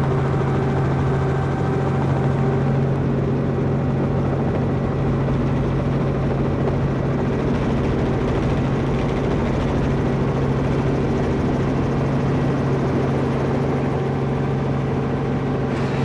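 Steady engine and rotor drone heard from inside a vehicle's cabin, with an even low hum that does not change.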